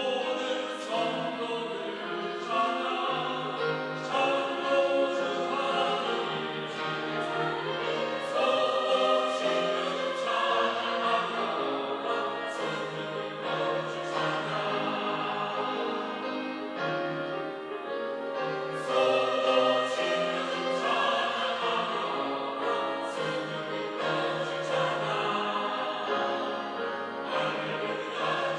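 Church choir singing a Sunday praise anthem, many voices holding sustained chords that change every second or so.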